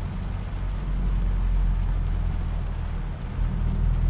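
Inside a car driving in heavy rain: a steady low engine and road hum, with an even hiss of rain and tyres on the wet road.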